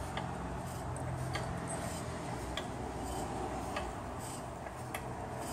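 A jack being pumped to raise a car's front suspension wishbone: a faint click about every second and a quarter over a steady low hum.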